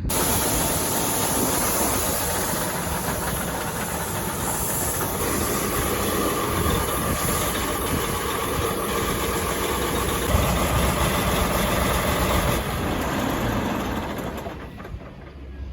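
Heavy earthmoving equipment running and working dirt: a steady engine with clanking rattles and a strong hiss, dying down near the end.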